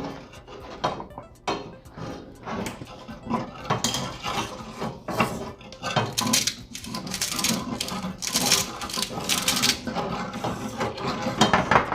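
Kitchen utensil and pan sounds: a run of quick clicks and scrapes, densest in the middle, as salt is added to cream heating in a pan.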